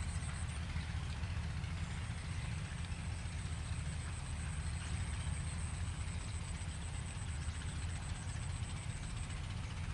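Farm tractor engine running steadily as it pulls a plough through the soil: a low, even rumble. Above it, a high, rapid ticking at about eight a second stops shortly before the end.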